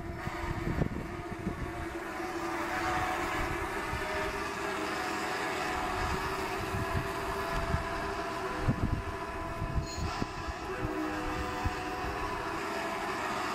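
G-scale model diesel locomotive's onboard sound system playing a steady diesel engine drone as the plow train runs, with irregular low knocks and clatter from the train working along the snowy track.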